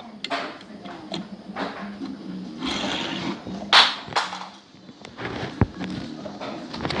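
Close handling noise: scattered clicks and knocks with rustling, a loud short swish a little past the middle and a low thump near the end.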